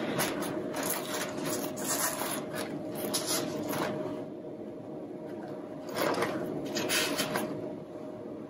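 Leaves and stems of a eucalyptus greenery garland rustling and rubbing as rose stems are pushed in among them, in irregular bursts that come mostly in the first half and again a couple of seconds before the end.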